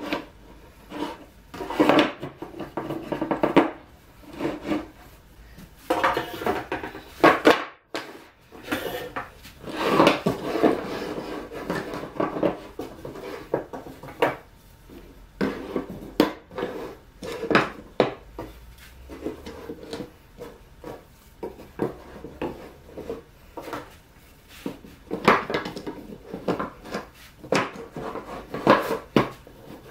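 Plywood jig arms and wooden frame strips knocking, clattering and sliding on a workbench as they are laid out and fitted together into a square, in irregular taps and rubs.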